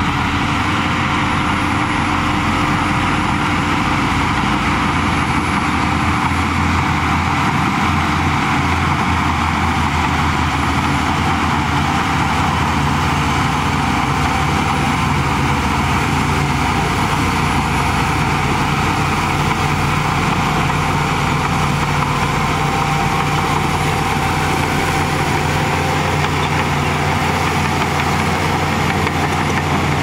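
Shantui crawler bulldozer's diesel engine running steadily as the dozer pushes soil with its blade.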